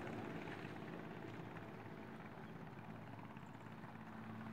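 Faint steady outdoor background noise with a low hum underneath.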